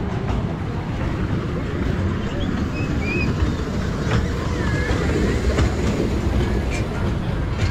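Children's amusement-ride train on its small track, a steady low rumble, with a few faint high chirps over it.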